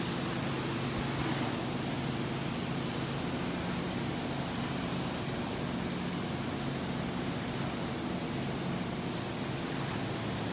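Carpet extraction wands drawing air and water up through long vacuum hoses as they are pulled over carpet: a steady rushing hiss with a low hum underneath.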